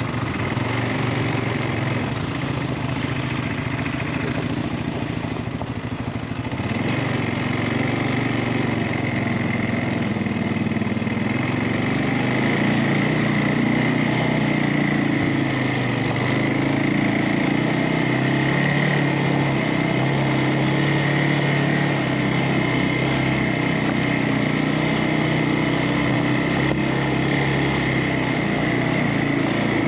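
CFMOTO ATV engine running steadily under way on a trail, its pitch shifting a little with the throttle.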